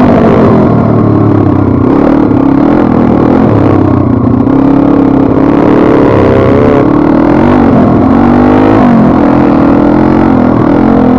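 Single-cylinder four-stroke pit bike engine under way off-road, its pitch rising and falling several times as the throttle is opened and closed.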